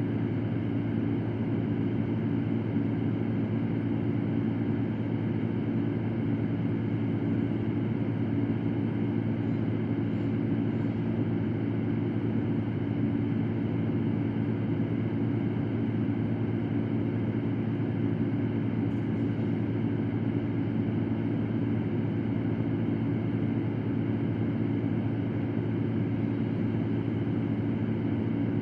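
A fan running steadily: an even rush of air over a low, constant hum.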